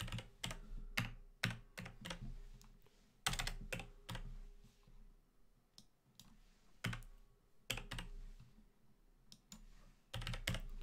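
Typing on a computer keyboard: scattered keystrokes in short runs with pauses between, as numbers are entered into fields.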